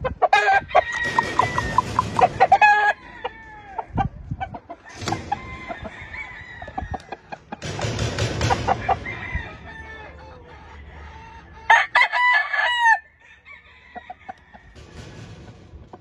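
Roosters crowing several times, with clucking between the crows.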